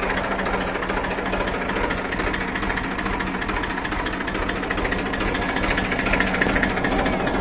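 Massey Ferguson 1035 DI tractor's three-cylinder diesel engine running steadily, heard up close with a fast, even clatter.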